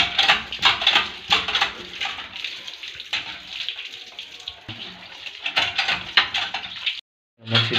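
Water gushing from a hand pump's spout and splashing over fish and the wet concrete floor as they are rinsed, with irregular louder splashes. It cuts off suddenly near the end.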